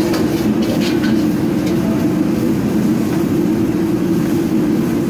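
Loud, steady rush of a high-output gas wok burner at full flame, with a few light scrapes of the metal ladle against the wok in the first second or so.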